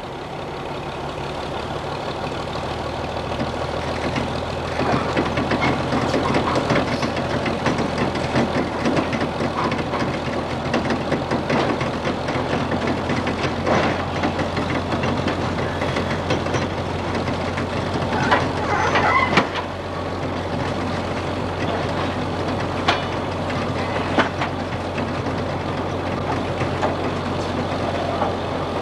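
Heavy diesel engine running steadily, with scattered clanks and knocks over it and a short louder burst about two-thirds of the way through.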